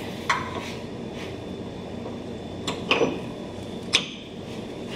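About four light metal clicks and knocks as an 80 Series Land Cruiser's rear lower control arm is handled and lined up to its bracket by hand, over a steady background hum.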